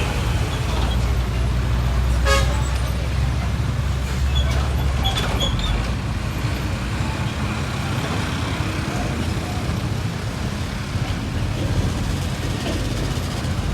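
Road traffic with a heavy bus passing: a deep engine rumble that fades about five seconds in, over steady tyre and road noise.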